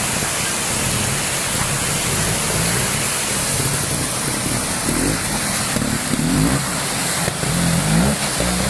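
Trials motorcycle engine revving in short bursts as the bike climbs through a rocky stream, over the steady rush of fast-flowing water. The revs rise about halfway through and again near the end.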